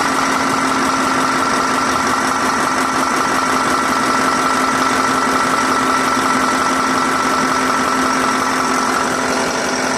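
KamAZ truck diesel engine idling steadily just after being started, with an even, unchanging tone.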